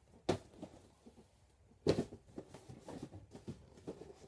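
Two knocks, the louder about two seconds in, then a run of lighter knocks and rustles: shoes and a shoebox being put away in a closet.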